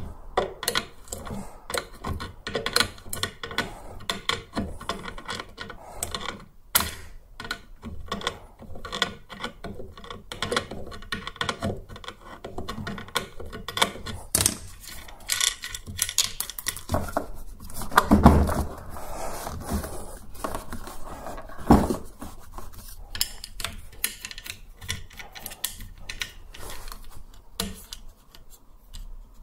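Steady clicking and clattering of hand tools and plastic parts as the tumble dryer's drive-motor blower fan is worked loose by hand, with a heavier knock about eighteen seconds in and another a few seconds later.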